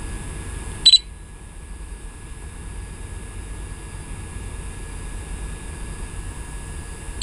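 Two short, high electronic warning beeps from the drone's remote controller, about six seconds apart, over a steady low hum. They fit the controller's weak-signal alert.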